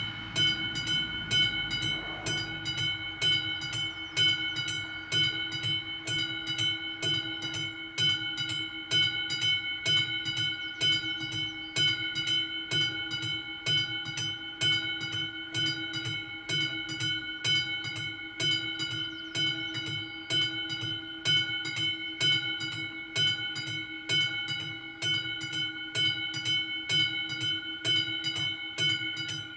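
Railway level-crossing warning bell ringing with rapid, evenly spaced strikes over a steady ringing tone, sounding while the crossing's red lights flash. The last rumble of a passing train fades out in the first couple of seconds.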